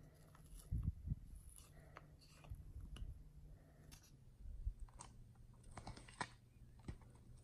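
Faint sticky clicks and squishes of egg-white and dish-soap slime being poked and squeezed by fingers in a plastic cup, with a few scattered soft taps.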